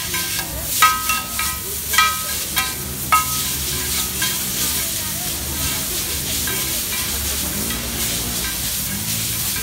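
Chowmein noodles sizzling on a large flat griddle (tawa) while two metal spatulas toss and scrape them. Several ringing metal clanks of the spatulas on the griddle come in the first three seconds, then a steady sizzle with scraping.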